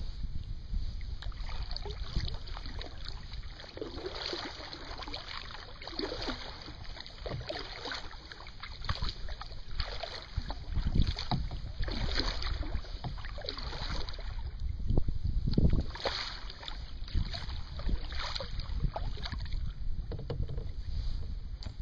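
Kayak paddle strokes swishing and splashing in the water, one every second or two, with wind rumbling on the microphone.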